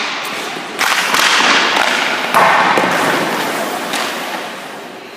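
Ice hockey shots and skating in an echoing indoor rink: two sharp cracks of stick and puck, about a second in and again midway, each trailing off in a long rushing hiss, with skate blades scraping the ice.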